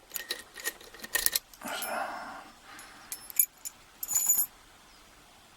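Small metallic clicks and clinks of lock-picking tools being handled against a pin-tumbler euro cylinder as picking gets under way, with a short rustle about two seconds in and two brief high metallic rings near the middle.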